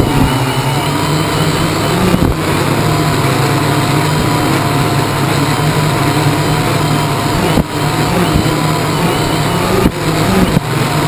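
Quadcopter's electric motors and propellers running steadily in flight, heard from a camera on the frame: a low hum with a wavering higher whine as the motors keep adjusting speed, over a noisy rush. The sound briefly dips a couple of times.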